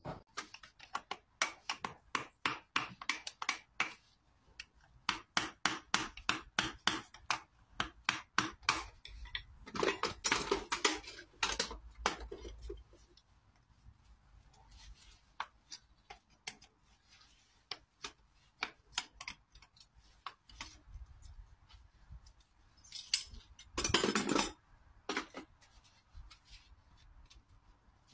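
A farrier's metal hand tools working a shod horse's hoof: a quick run of short strokes, about two or three a second, then a longer, noisier stretch about ten seconds in, scattered strokes, and a louder longer stretch near the end.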